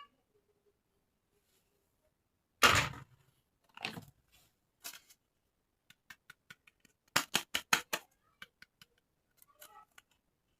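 Toy and packaging being handled during an unboxing: a loud plastic rustle, two softer ones, then a run of sharp clicks and snaps, quickest about two thirds of the way in.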